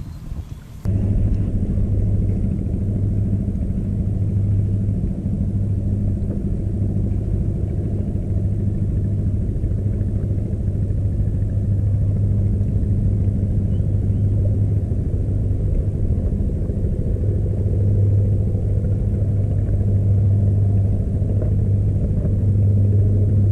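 A steady low engine hum, running evenly without revving; it starts abruptly about a second in.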